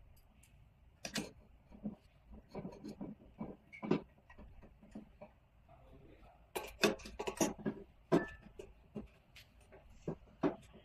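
Irregular clicks and knocks of a metal screwdriver, small screws and hard plastic shell parts being handled, with a cluster of sharp clacks partway through. Near the end a screw is being driven into the plastic shell.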